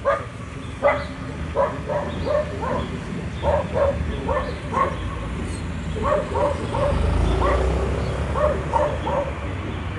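A dog barking and yipping repeatedly in short, quick bursts, some in runs of three, over a steady low rumble.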